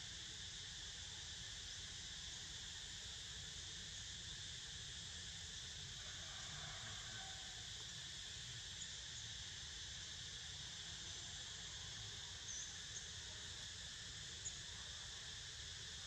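Cicadas buzzing steadily in a high, unbroken drone, with a few faint short chirps and a small click in the second half.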